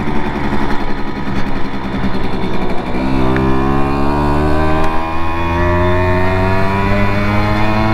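Simson two-stroke moped engine on the move: rough and uneven for about the first three seconds, then accelerating, its pitch rising steadily until near the end.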